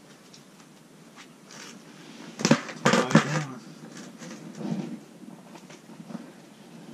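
A quick run of sharp knocks and clatters about two and a half seconds in, lasting about a second, then a softer knock near the five-second mark.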